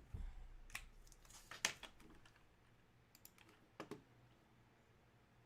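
Faint, scattered clicks and taps, a handful spread over several seconds.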